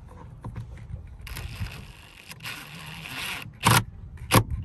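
Rustling and scraping as plastic console parts and wiring are handled, then a few sharp knocks in the last second.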